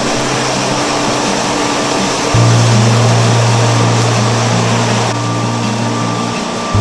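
Background music with a steady, dense wash of noise and a stepping bass line; a deep held bass note comes in about two and a half seconds in.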